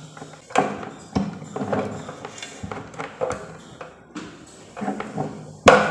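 Plastic thermostat control unit being pushed and worked into the socket of an electric cooking pan: a series of scattered clicks and knocks, with the loudest sharp knock near the end as it is pressed home.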